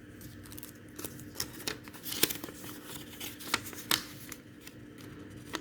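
Packaging being handled during an unboxing: irregular sharp clicks and short rustles of plastic and paper, a few louder ones around the middle.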